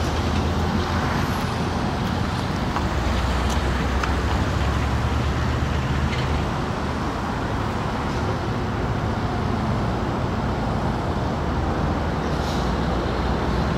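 Steady road traffic: a line of cars and pickups idling and creeping toward a gate checkpoint, a continuous low engine and tyre rumble.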